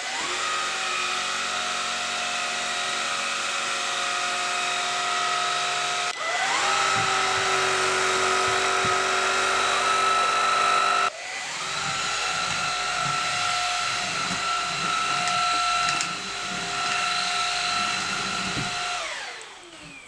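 Xiaomi Dreame XR cordless stick vacuum running with its motorized carpet brush head, sucking up semolina from a tabletop: a steady high motor whine. The whine dips and rises again about six seconds in, and the motor winds down near the end.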